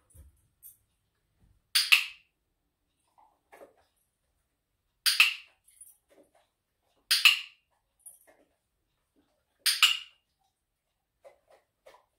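Dog whining in four short, high-pitched bursts a few seconds apart while it sits waiting in a 'leave it' hold.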